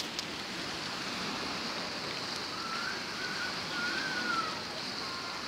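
Steady outdoor background noise, an even hiss with no distinct events. A faint wavering whistle-like tone rises and falls for about two seconds in the middle.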